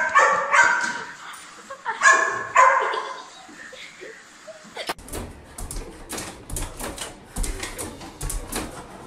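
Dog barking at a robot vacuum cleaner in two short bursts of high yipping barks within the first three seconds. From about five seconds in there is a run of light knocks and clicks.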